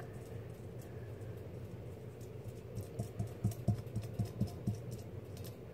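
Hands handling homemade slime in a bowl: soft, quick squelching taps, about nine or ten at roughly four a second in the second half, over a steady low hum.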